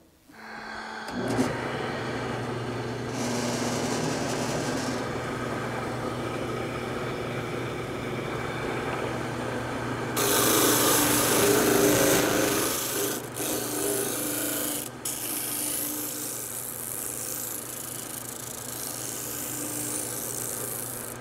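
Wood lathe driving a homemade disc sander at about 1700 RPM, running with a steady hum, while the end of a wooden board is pressed against the sanding disc. The rough sanding noise is loudest about ten seconds in, then comes and goes as the board is worked against the disc.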